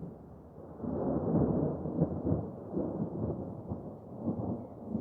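Rolling thunder rumbling. It swells about a second in, surges unevenly, and fades away near the end.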